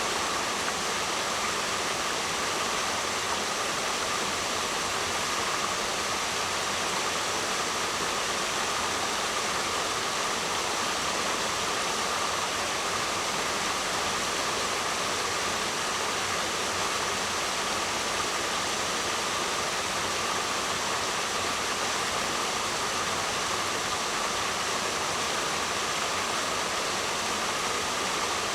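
Waterfall: falling water rushing steadily in an even, unbroken hiss, with no surges or breaks.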